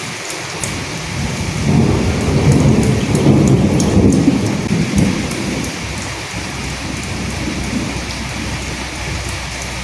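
Steady rain falling, with a low roll of thunder that swells about a second in and fades away by about six seconds.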